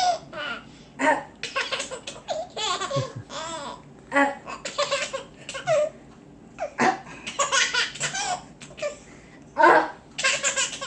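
A baby laughing in repeated bursts of giggles and belly laughs, with short pauses between them.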